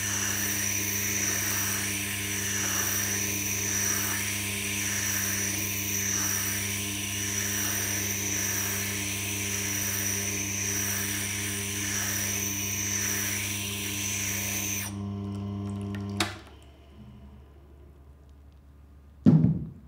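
Tormek wet grinding wheel running with a steady motor hum while a stone grader is rubbed side to side across the stone to grade it on its fine side, a rasping that swells and fades about once a second. The rasping stops near the end and the machine is switched off a second later, followed by a single click.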